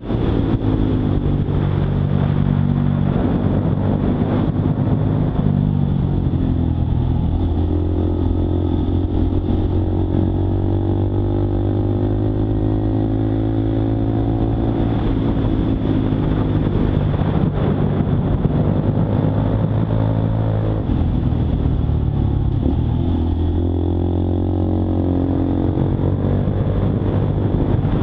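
Honda Monkey 125's single-cylinder four-stroke engine running while the bike is ridden. The engine note holds steady for long stretches and shifts in pitch a few times.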